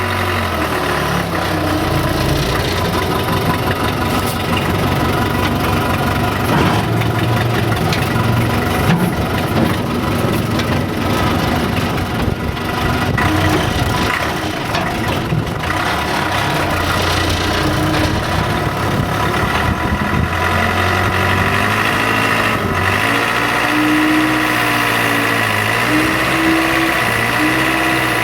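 Case 580C loader-backhoe's four-cylinder diesel engine running steadily, its pitch rising and falling as the loader works, with a few clunks along the way.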